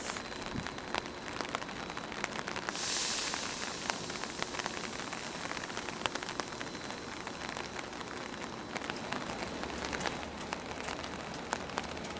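Heavy rain falling steadily, with many sharp drop clicks over an even hiss. A brief louder hiss swells about three seconds in, and a faint low hum joins near the end.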